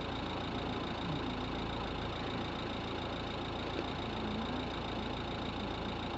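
Steady hum of an idling engine, even throughout with no sudden sounds.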